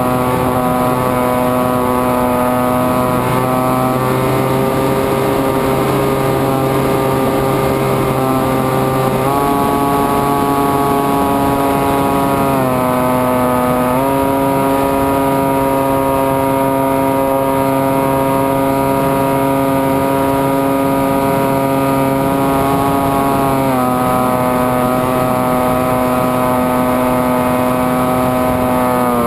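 Electric motor and pusher propeller of a Zephyr II FPV flying wing, heard from on board in flight: a steady droning whine whose pitch steps up and down several times as the throttle changes.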